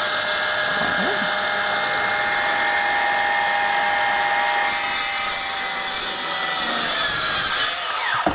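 Cordless circular saw running at full speed as it cuts across a vinyl flooring plank, a steady high motor whine over the blade's cutting noise. Near the end the saw is released and the motor winds down.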